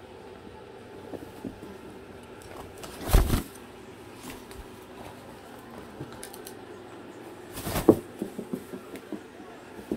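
Two short rustling thumps, about three and about eight seconds in, with light scattered clicks and taps between them, from a fabric pet teepee being handled or played in.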